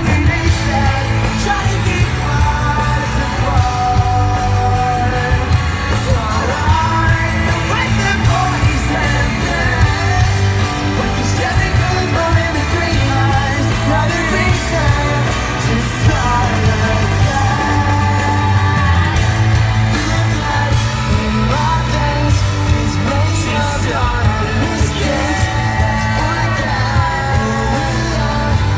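Pop-rock band playing live in an arena: loud, steady band music with a heavy bass line and singing, and yelling from the crowd.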